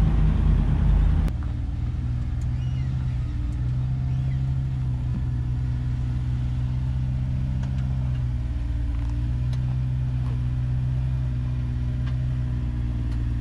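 Off-road 4x4 engine running at low revs while crawling over rock ledges: a steady hum whose pitch sags and recovers a couple of times. For about the first second a louder, rougher rumble stops abruptly.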